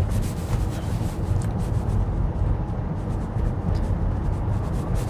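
Steady low road and tyre rumble inside the cabin of a Tesla Model Y electric car as it pulls away from a stop and drives on, with no engine sound.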